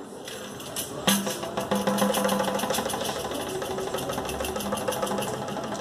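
Background music: a fast, even clicking percussion beat over sustained low tones, coming in about a second in.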